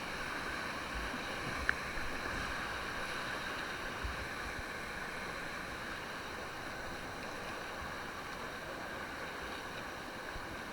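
Steady rushing of river water around a paddled raft, with a small click about two seconds in.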